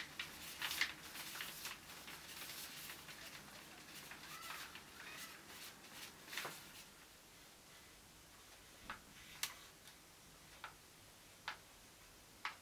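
Faint scratching and dabbing of a paintbrush applying acrylic paint to a canvas. This is followed by a few separate light clicks at irregular spacing in the second half.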